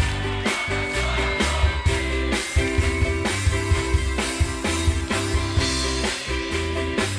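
Live band playing an instrumental stretch of a song with a steady beat: drum kit, keyboard, acoustic guitar and accordion.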